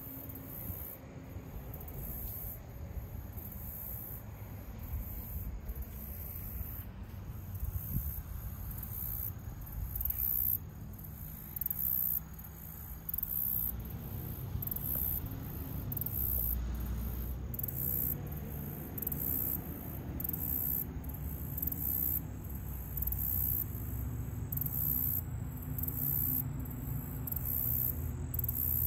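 Insects chirping, very high-pitched, in a steady, even pulse, with a low rumble underneath.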